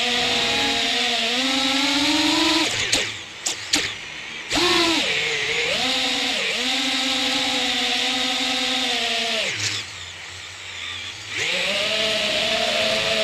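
Armattan Badger FPV quadcopter's motors and propellers buzzing, the pitch rising and falling with the throttle. Twice the buzz drops away as the throttle is cut: about three seconds in, with a few quick blips, and again for about a second and a half around ten seconds in, before it climbs back.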